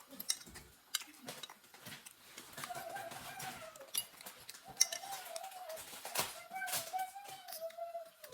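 Close-up eating sounds of spaghetti: wet chewing, smacking and slurping clicks throughout. A high, wavering, voice-like hum joins about two and a half seconds in and carries on to the end.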